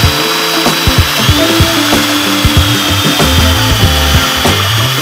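Cordless drill running steadily under load, its bit turning down through a hidden-screw deck jig into a hardwood decking board. The motor's high whine dips slightly in pitch about a second in.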